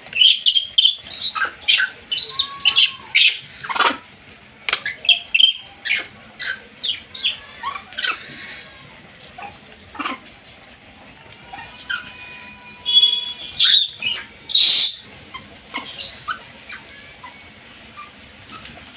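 Rhesus macaques giving many short, high squeaks and chirps in irregular succession, with a louder cluster about two-thirds of the way through.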